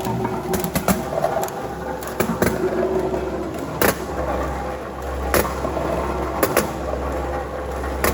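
Industrial counting and sorting machine running with a steady low hum, with irregular sharp clicks and clacks as dog treats drop and are counted into a container.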